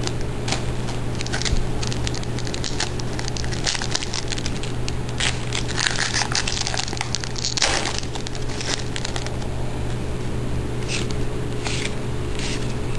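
Trading card pack wrapper crinkling and cards being handled: a run of short, irregular rustles and crackles, busiest near the middle, over a steady low hum.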